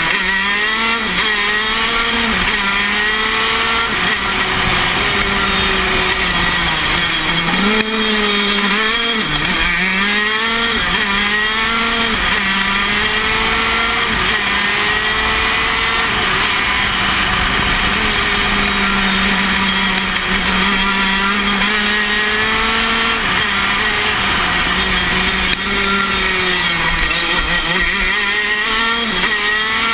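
Tony Kart KZ125 shifter kart's single-cylinder 125cc two-stroke engine running at racing revs, heard from the driver's seat. The pitch mostly holds high, falling sharply and climbing back a few times as the kart slows for corners and accelerates out.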